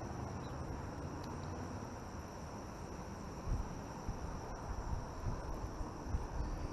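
Steady chorus of insects, such as crickets, shrilling on one high note, with a few soft low thumps in the second half.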